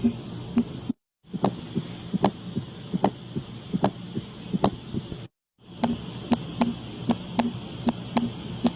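Recorded heart sounds: three short heartbeat recordings played one after another, separated by brief silent breaks. Each is a rhythm of short thuds over a steady hiss, and the last one is much faster, at about four thuds a second.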